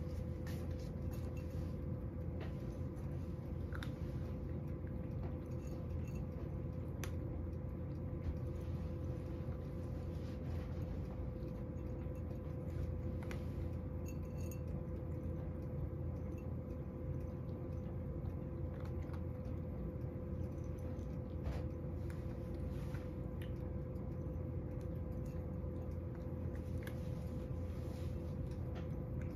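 A cat eating dry kibble from a ceramic bowl: scattered small crunches and clicks over a steady low hum.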